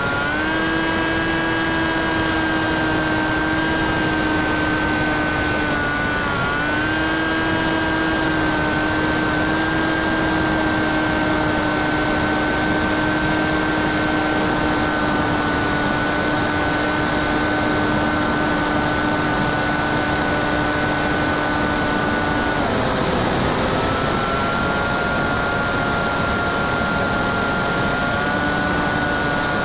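Brushless electric motor (NTM 35-30A, 1400 kV) and 9x6 propeller of a Bixler 2 RC plane whining steadily in flight, with wind rush over the airframe. The pitch dips briefly about 6 seconds in and drops again at about 23 seconds, settling slightly lower as the throttle changes.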